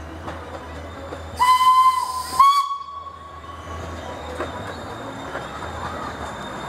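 Miniature steam locomotive's whistle, sounding about a second and a half in: a blast of about a second with a rush of steam, then a second, slightly higher blast that fades away, over a steady low rumble.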